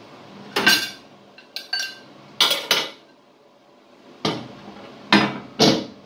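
Microwave oven turntable plate being set back into the cavity, clinking and knocking against the oven floor and the drive coupler in a series of sharp knocks.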